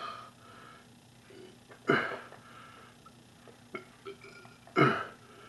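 Two loud, short involuntary throat noises from a man forcing down sour cream, about three seconds apart. They are hiccup- and burp-like heaves of a stomach in dairy overload after about 3 lb of sour cream and half a gallon of milk. Faint clicks of the spoon in the plastic tub come between them.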